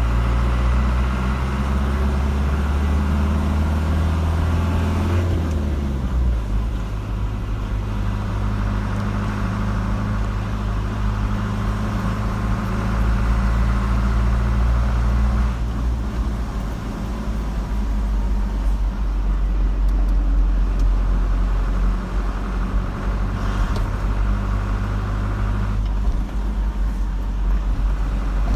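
A car driving, with steady engine hum and road noise. The engine note drops about five seconds in.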